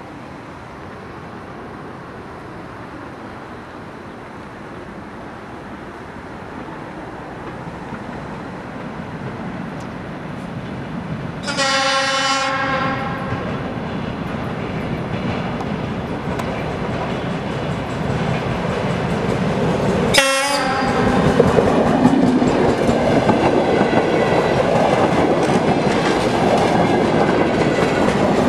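DR1A diesel multiple unit approaching and passing close, its engine and wheels on the rails growing steadily louder. It sounds its horn in one blast of about a second near the middle, and a second, shorter blast about eight seconds later, just before it runs by at its loudest.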